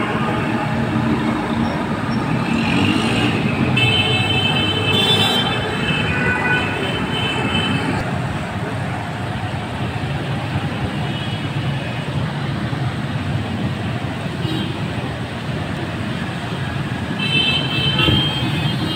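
Street traffic heard from above: a steady rumble of cars and motorcycles, with high-pitched tones standing out a few seconds in and again near the end.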